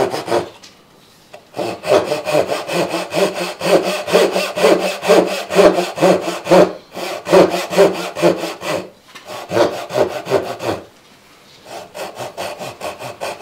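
Japanese backsaw cutting a hardwood board in quick repeated strokes. It is sawing a second kerf alongside the first to widen the cut. There are short pauses about a second in and near the end, and the final strokes are lighter.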